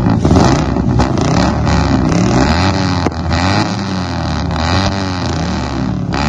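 Four-cylinder engine with a homemade true dual exhaust, its header pairing the outer and the inner cylinders so the pulses alternate evenly between the two pipes. The engine is revved up and down repeatedly, which sounds more like a pissed-off weed whacker than a V8-style growl.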